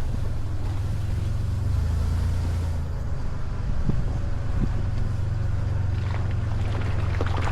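Off-road vehicle's engine running at low revs, a steady low drone, with scattered knocks and crackles that grow more frequent in the last second or two.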